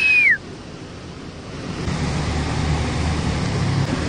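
Torrential floodwater rushing and cascading through a street, a steady noise that swells louder and deeper about two seconds in. It opens with a short whistle-like tone that falls in pitch.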